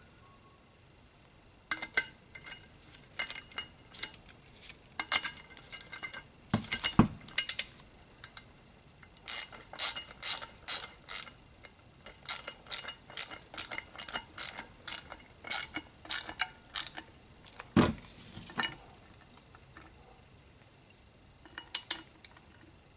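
Ratcheting torque wrench clicking in short runs as the bolts holding the brake disc to the motorcycle's front wheel hub are done up to 17 foot-pounds. There are two louder knocks, about 7 seconds and 18 seconds in.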